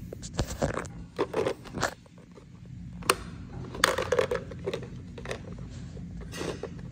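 Small plastic clicks and clatters from handling miniature toy drink bottles and a toy vending machine: a sharp click about three seconds in, then a bottle rattling in the plastic dispensing tray and being pulled out. A steady low hum runs underneath.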